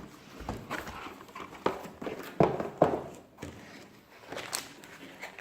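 Handling noise from unpacking a keyboard box: irregular knocks and clicks, about a half-dozen, with light rustling of packaging between them.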